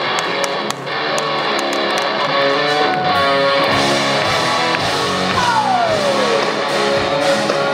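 Live rock band music led by electric guitar, with one long note sliding down in pitch about two-thirds of the way through.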